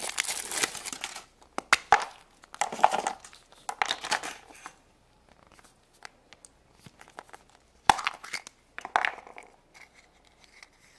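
Foil wrapper crinkling and tearing as it is peeled off a chocolate surprise egg, with further rustling bursts over the next few seconds. Near the end come a few sharp clicks and rustles as the small plastic toy capsule from the egg is handled and opened.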